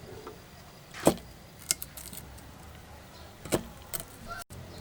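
Kitchen utensils clinking and knocking: a handful of separate sharp hits, the loudest about a second in, with a brief dropout in the sound near the end.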